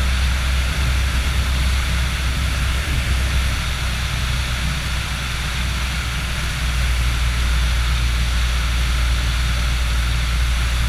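Motor glider's piston engine and propeller droning steadily in flight, heard from the cockpit with air rushing over the airframe; the engine note dips slightly about five seconds in and picks up again a little under two seconds later.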